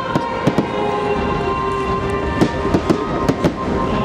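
Aerial fireworks shells bursting in a series of sharp bangs over music with long held notes.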